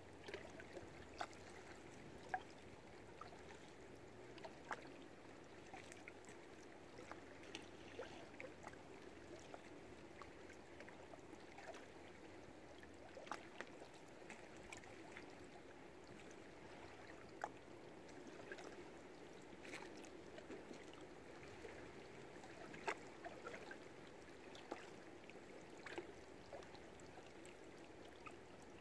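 Faint lake water lapping and trickling against moored sailing boats, with many small irregular clicks and plops.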